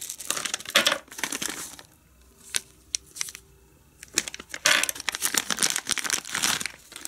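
Clear plastic zip-lock bags crinkling as they are handled and pulled open, in bursts, with a quieter stretch in the middle holding a few small clicks.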